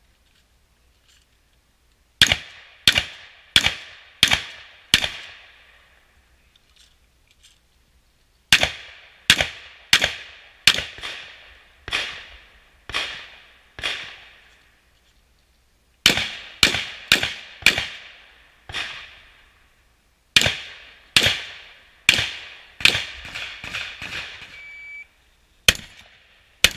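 Shotgun fired in fast strings during a practical-shooting stage: sharp bangs, each with a short echo, about half a second to a second apart. There are four strings of five to nine shots, with pauses of a few seconds between them.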